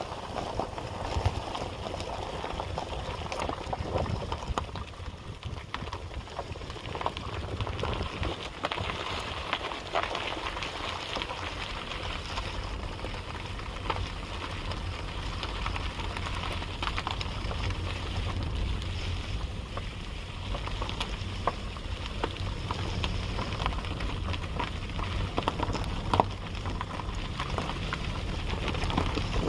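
Wind buffeting the microphone of a handheld camera as a low rumble, with irregular crackles and footsteps on grass while walking.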